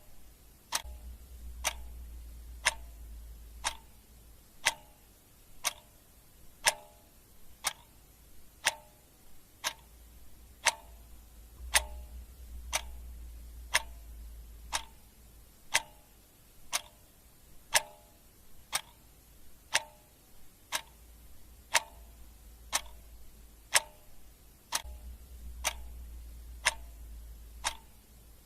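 Clock ticking steadily about once a second, the ticks alternating slightly louder and softer in a tick-tock pattern, over a faint low hum.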